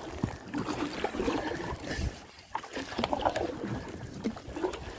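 Canoe paddle strokes: a single-blade paddle dips and pulls through lake water, giving repeated splashes and swishes of water against the blade and the outrigger canoe's hull.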